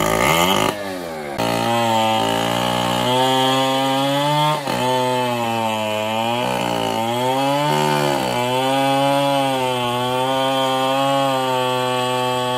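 Two-stroke chainsaw revving up about a second in, then held at high speed, its pitch sagging and recovering several times as it cuts into the wood.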